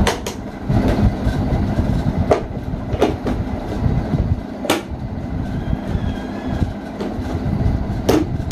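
Hard plastic parts of a ride-on toy car clicking and knocking as they are pressed and snapped into place, about six sharp separate knocks spread through, over a steady low hum.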